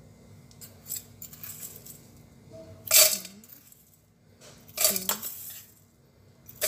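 A spoon scooping rolled oats out of a Quaker oats tin, clinking and scraping against the rim and sides about every two seconds. The loudest clink comes about three seconds in.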